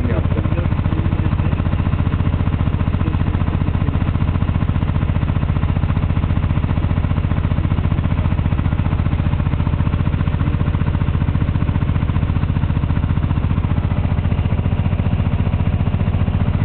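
Engine of a small covered river tour boat running steadily under way: a loud, unchanging low drone with a fast, even pulse.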